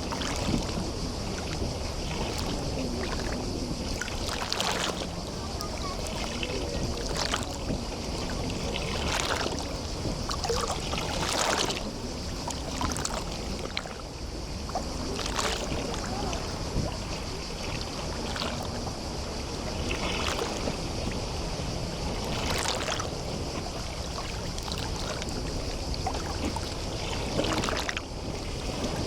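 Small sea waves lapping and splashing at irregular intervals every second or few, over a steady wash of water and a constant high hiss.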